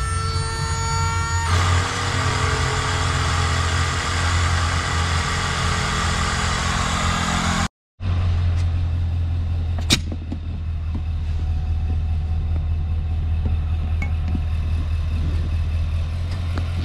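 Electric air pump running off a pickup truck, with the truck's engine idling, inflating an inflatable kayak through its hose. There is a loud hiss over a steady low hum until a cut about eight seconds in. After that the low hum is steadier with less hiss, and there is one sharp click about ten seconds in.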